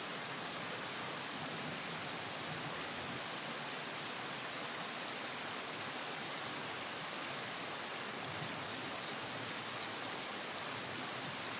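Steady, even rushing hiss with no breaks or separate sounds.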